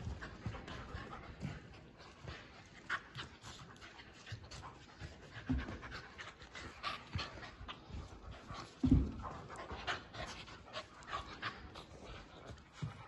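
Two dogs, one a Labrador-beagle mix, play-wrestling: panting, with many short scuffs and clicks of paws and mouths as they tussle. A louder short low thud comes about nine seconds in.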